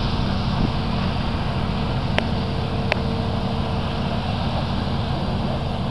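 Combine harvester running as it harvests, a steady drone with one held tone. Two brief clicks come about two and three seconds in.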